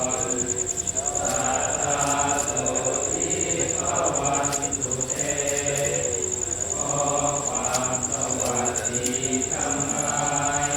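Buddhist monks and lay followers chanting together in Pali, many voices in a drawn-out group recitation. A steady, high-pitched pulsing whine runs underneath.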